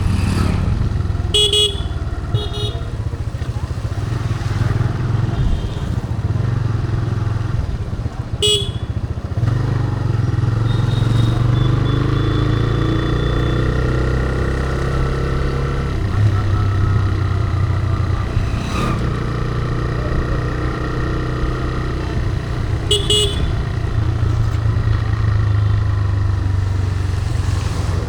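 TVS Raider 125's single-cylinder engine running steadily while the motorcycle is ridden, its pitch shifting slowly with throttle. A few short horn beeps sound over it, twice near the start, once about eight seconds in and once near the end.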